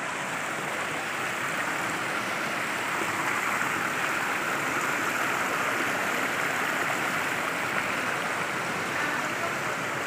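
Shallow rocky stream running over stones and small cascades: a steady rush of water that does not change in level.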